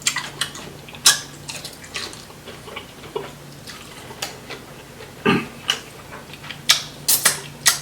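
Close-up eating sounds from a seafood boil: irregular wet clicks and smacks of chewing and handling sauce-covered shellfish, with a cluster of sharper clicks near the end, over a steady low hum.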